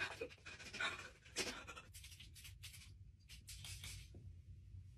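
Quick scratchy rubbing strokes of a deodorant stick being applied to skin, faint, a few strokes a second.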